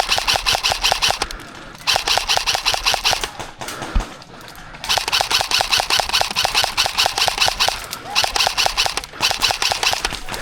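Airsoft electric gun firing full-auto in long bursts of rapid, evenly spaced clicks. Short pauses come about a second in, for about a second and a half around four seconds in, and twice more near the end.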